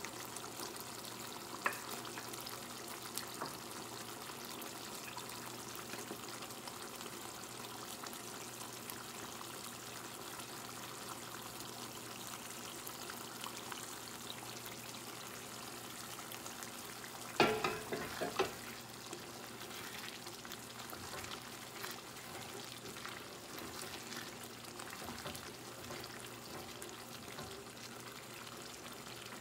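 Thick tomato and onion sauce simmering in a pot with a steady low sizzle. A few knocks of the wooden spoon and glass bowl against the pot as gizzards are scraped in, with the loudest cluster a little past halfway.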